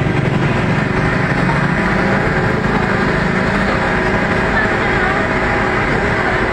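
A motor engine running steadily close by, with a constant hum, over faint voices of a crowd.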